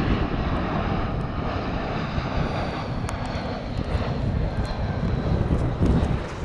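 British Airways Airbus A320-family jet on final approach passing low overhead, its engine noise loud and steady, with a faint high whine slowly falling in pitch.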